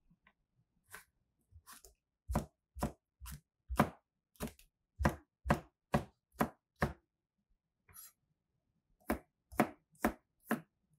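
Chef's knife chopping vegetables on a cutting board: a run of about ten sharp strokes at roughly two a second, a pause of about two seconds, then four more strokes near the end.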